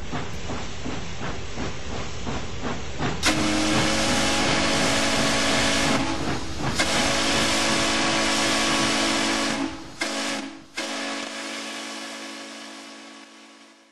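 Steam locomotive running with a steady rhythmic beat of about four strokes a second. About three seconds in its steam whistle starts: a chord of several notes with a hiss of steam, held in long blasts with a few short breaks, fading out near the end.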